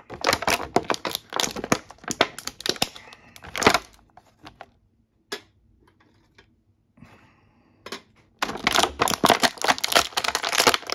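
Clear plastic action-figure packaging crinkling and crackling as the figure is worked out of its plastic bag and tray, in two busy spells with a quieter few seconds of scattered clicks between them.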